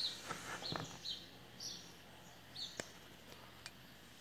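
A small bird chirping over and over in short, high chirps. A few faint knocks and two sharp clicks sound in between.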